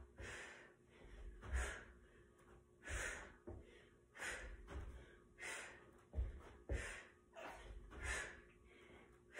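A woman breathing hard between box jumps, a heavy breath roughly every second and a half, with dull thumps from her bare feet landing on an upholstered ottoman and the floor.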